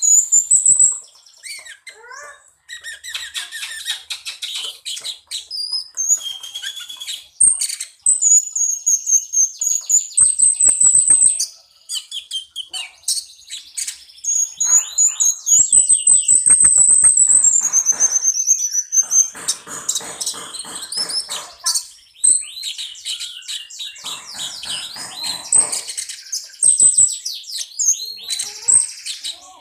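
Cucak cungkok singing a continuous shrill song: loud high whistles sliding up and down, mixed with fast runs of chirps and trills, with a few short pauses.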